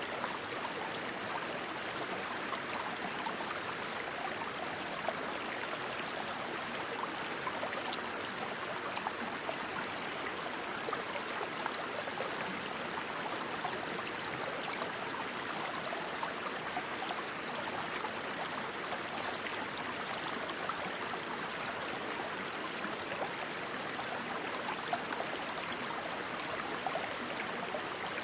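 Rushing stream water flowing steadily. Short, sharp high-pitched chirps come and go over it, more often in the second half, with a brief rapid trill about 20 seconds in.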